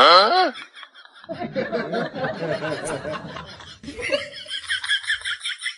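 A quick falling swoop, then a couple of seconds of laughter.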